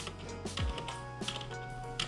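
Background electronic music: held synth tones over a deep kick drum that drops in pitch on each beat.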